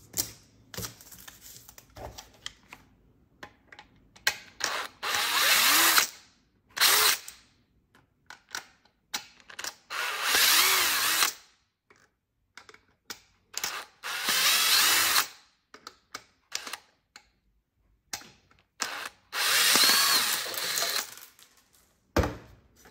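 Cordless Porter-Cable drill/driver backing out the four screws from the bottom plate of a router: about four runs of the motor whirring a second or two each, its pitch rising and falling as each screw spins loose, with small clicks and rattles of handling in between.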